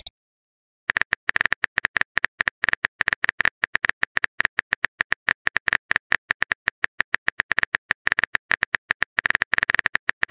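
Phone keyboard typing sound effect: rapid, irregular key-tap clicks, many a second, starting about a second in and running on without a break.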